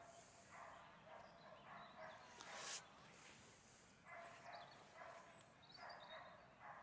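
Belgian Malinois barking faintly and repeatedly, about two barks a second, with a pause in the middle. A single sharp knock about two and a half seconds in is the loudest sound.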